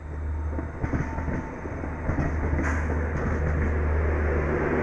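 Electric passenger locomotive and LHB coaches passing close by as the train arrives: a steady low rumble with wheel noise, sharp clicks about a second in, and a growing clatter as the coaches roll past.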